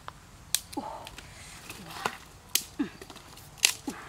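A few sharp clicks or knocks at uneven intervals, some followed by a short, low, falling tone.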